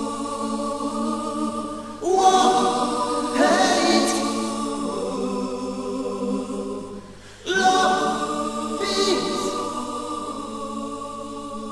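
Background music: a choir singing long held chords, with new chords coming in sharply about two seconds and seven and a half seconds in.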